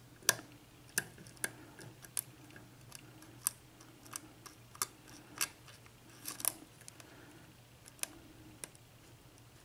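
Lock pick clicking against the pin stacks of a six-pin US Lock KIK cylinder during single-pin picking: sharp, irregular small metallic clicks, about one or two a second, over a faint steady hum.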